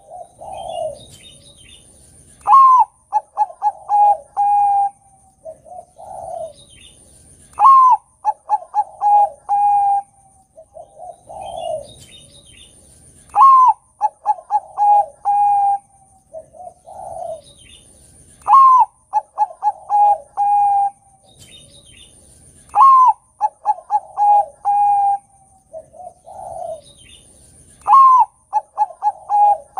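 Bangkok-type zebra dove (perkutut) singing its staccato cooing song. Each phrase opens on a rising note and runs on into a quick string of short coos, repeated about every five seconds, six times in all.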